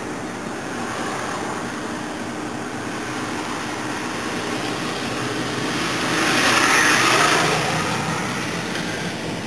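Road noise inside a moving patrol car: a steady engine and tyre hum that swells louder for a second or two about six to seven seconds in, then settles back.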